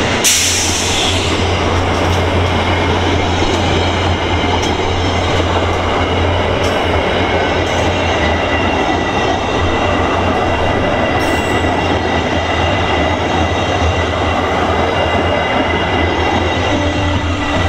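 VIA Rail LRC passenger coaches passing close by at about 67 mph: a steady, loud rush of steel wheels on rail with a low rumble and a few sharp clicks from the rail joints.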